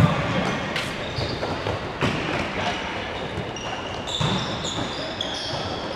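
Futsal play in a large, echoing sports hall: sneakers squeak in short bursts on the court floor, the ball thuds a few times as it is kicked, and players give an occasional shout.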